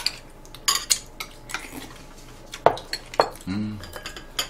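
Chopsticks and spoons clinking against ceramic bowls and plates while people eat, a string of separate light clicks. A short hummed voice sound comes about three and a half seconds in.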